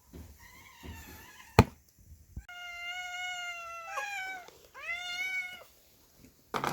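A cat meowing: a faint call, then a long, steady meow that drops in pitch at its end, followed by a shorter rising-and-falling meow. A single sharp knock sounds about a second and a half in.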